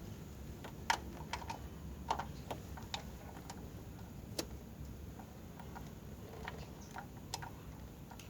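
Irregular light clicks and knocks of hand tools and metal parts being handled while valve covers are taken off a truck's cylinder heads, over a low steady background.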